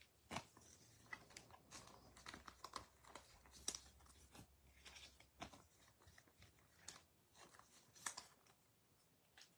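Faint crinkling and clicking of a foil trading-card pack wrapper and baseball cards being handled, with many short, irregular crackles.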